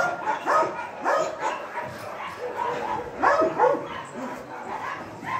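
Dogs barking and yipping in short, sharp calls that come every second or so, with the loudest pair about three and a half seconds in.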